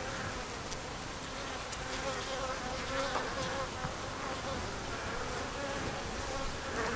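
Honey bees buzzing steadily over an open hive, an even hum.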